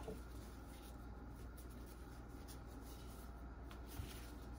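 Faint rubbing and rustling of plastic-gloved hands working pastry dough on a wooden board, with a light tap about four seconds in, over a low steady hum.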